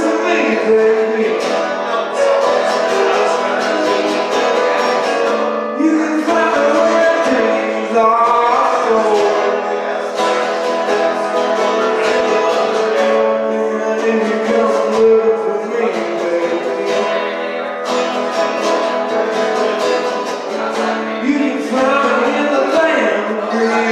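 Live music: a strummed acoustic guitar with a singing voice.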